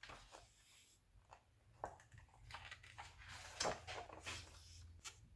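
Faint paper rustling and crackling as glossy magazine pages are handled and turned, in a series of short irregular crackles, the loudest a little past the middle.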